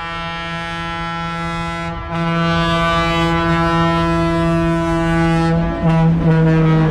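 Locomotive horn sounding a long, steady single-tone blast that breaks off briefly about two seconds in and resumes, then a string of short toots near the end.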